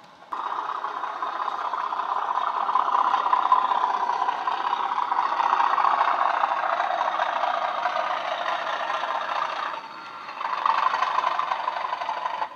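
Sound decoder in a Bachmann model Class 37 playing a recorded English Electric diesel engine through the model's built-in speaker, running steadily with little bass. It dips for a moment about ten seconds in, then picks up again.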